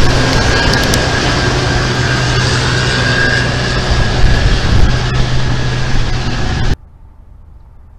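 Case IH combine harvester running close by, a loud steady engine and threshing-machinery noise with a low hum and a thin high whine running through it. It cuts off suddenly near the end, leaving only faint outdoor background.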